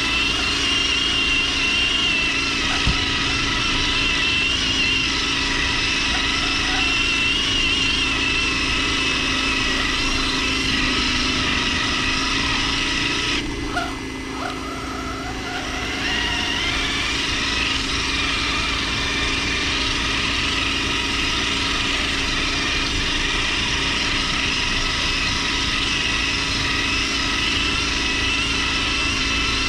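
Whine of a radio-controlled crawler truck's electric motor and gears, heard through the truck's own onboard camera as it drives. About halfway through, the whine drops away for a couple of seconds as the truck pauses, then rises again as it moves off.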